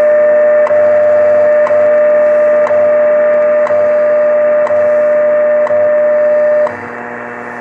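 WWV shortwave time-signal broadcast on 10 MHz, heard through a Grundig Satellit 750 receiver's speaker: a steady tone broken by a short tick every second. The tone stops about seven seconds in, leaving only the once-a-second ticks over static and hum.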